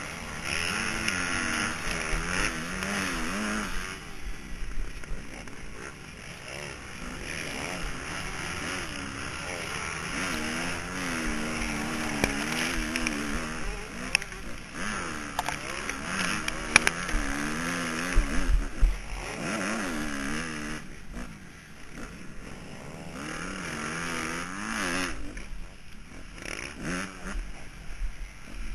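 Motocross bike engine heard from the rider's helmet, its pitch rising and falling again and again as the throttle is worked around the track, with wind rushing over the helmet-mounted microphone. A few sharp knocks about two-thirds of the way through.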